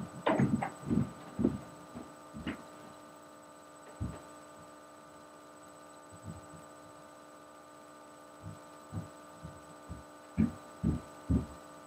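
Footsteps and knocks of someone getting up and walking off, a quiet stretch, then footsteps coming back and growing louder near the end. A steady electrical hum made of several tones runs underneath.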